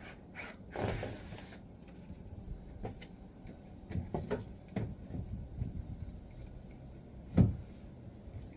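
Scattered knocks, clunks and light rattles of greenhouse parts being handled and moved, with one sharp thump about seven seconds in.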